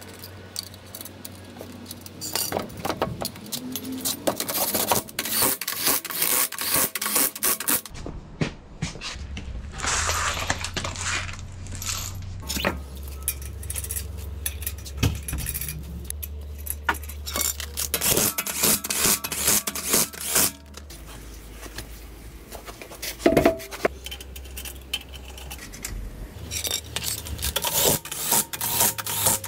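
Metal clinking, scraping and ratcheting of wheel nuts being threaded onto an alloy wheel and tightened with a socket wrench. Near the end, a cordless impact wrench rattles in short runs on the nuts.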